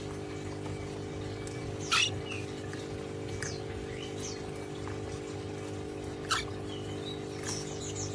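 Pet parrot giving short, high squeaky chirps that sweep downward, a handful of times and loudest about two seconds and six seconds in, over a steady low electrical hum.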